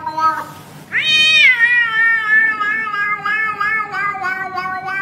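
A domestic cat's long, drawn-out meow. A quieter call comes first; about a second in the pitch jumps sharply up, then wavers and slowly sinks over several seconds.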